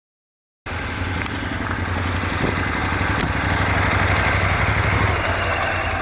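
Dead silence for a moment, then a motorcycle engine idling steadily, with a couple of faint ticks.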